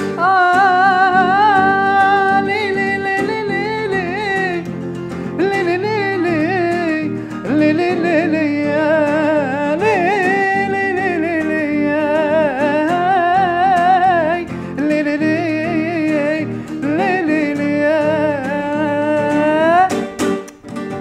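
A man singing long, drawn-out, ornamented notes that waver and bend in pitch, accompanied by a nylon-string acoustic guitar played live. The music breaks off at the very end.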